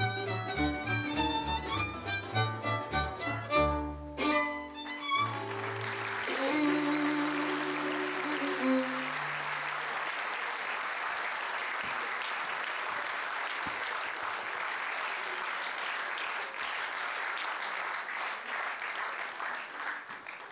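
Violin-led Hungarian folk dance music plays its closing bars, ending about five seconds in with held low notes that die away by about nine seconds. Audience applause starts as the tune ends, runs on steadily and tails off at the very end.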